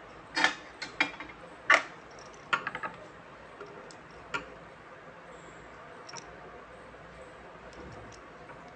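Light clicks and knocks from the boost converter board and its wires being handled: about five in the first three seconds, among them a quick cluster of small ticks, and one more a little after four seconds, then only faint room tone.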